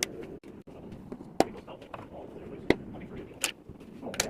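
A handful of sharp knocks and clicks, about a second apart, like small hard objects being set down and moved around, over a low background murmur.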